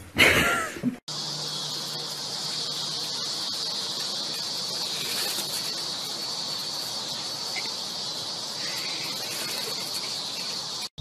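A steady, high-pitched outdoor insect chorus that drones on unchanged. It is preceded in the first second by a brief, loud, pitched cry that cuts off abruptly.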